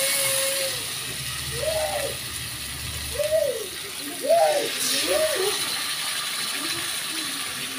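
Masala-coated fish pieces sizzling in shallow oil in a pan, a steady high hiss. A small child's short calls rise and fall over it a few times in the middle.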